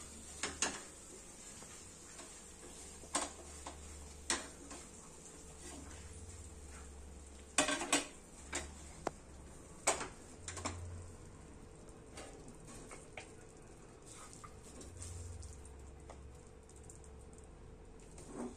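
Wooden spatula stirring and scraping thick beetroot halwa around a nonstick pan, with irregular knocks of the spatula against the pan, loudest in a cluster about halfway through.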